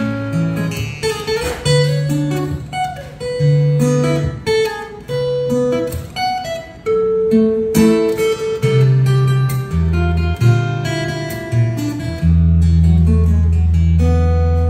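Solo fingerstyle acoustic-electric guitar playing an instrumental piece: a picked melody over bass notes, heard through the amplification. Near the end a low bass note is held and rings under the melody.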